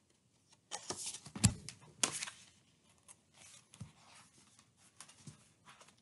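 Paper pages of a picture book being turned and handled: a burst of rustling and crinkling about a second in with a dull thump, then faint, scattered rustles.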